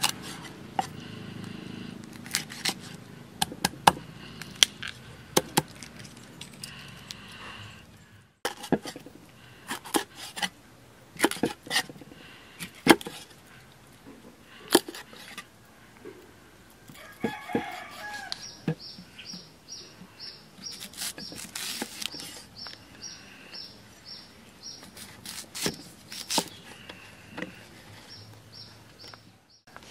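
A cleaver chopping fish into pieces on a thick wooden chopping block: irregular, sharp knocks. Chickens and birds call in the background, and from about halfway through a high chirp repeats quickly and evenly.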